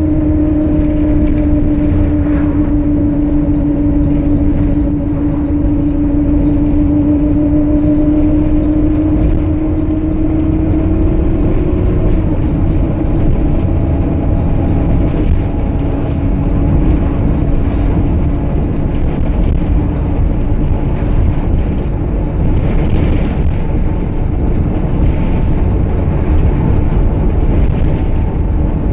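Optare Solo bus's Cummins diesel engine running under way with road rumble, heard inside the passenger cabin. A steady whine sits over the deep rumble, slowly falling in pitch and fading about twelve seconds in.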